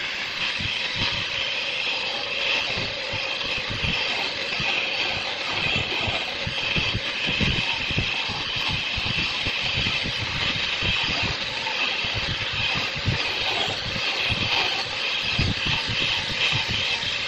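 Woodworking machinery running steadily, with a constant high-pitched hiss and irregular low knocks throughout.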